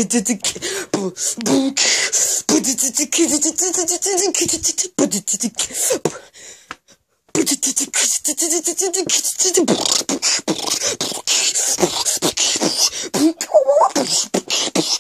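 A boy beatboxing: fast mouth clicks and pops mixed with hummed, pitched vocal sounds, breaking off for about a second partway through.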